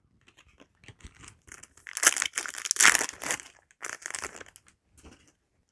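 Foil Yu-Gi-Oh! booster pack wrapper being handled and torn open, with the cards inside sliding against each other. It is an irregular rustle, loudest about two to three seconds in, that dies away near the end.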